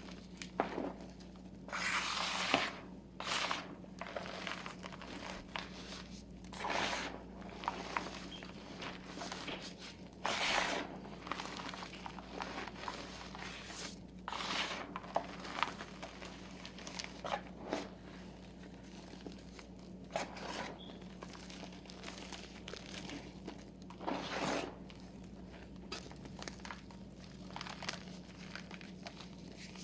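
Blocks of gym chalk mixed with holi colour powder crunching and crumbling as they are crushed by hand, in irregular crunches from a fraction of a second to about a second long.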